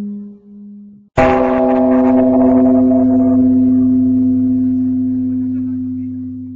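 A large metal bell is struck once about a second in and rings on with a deep, slowly fading tone and several higher overtones. Before the stroke, the ring of an earlier stroke is dying away with a slow wobble.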